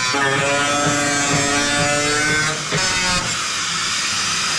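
Angle grinder cutting into a car hood: a steady high motor whine, which about three seconds in gives way to a loud hiss.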